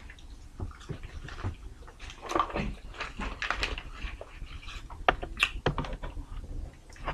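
Scattered light clicks, taps and brief rustles from food containers and a small plastic toy being handled on a table.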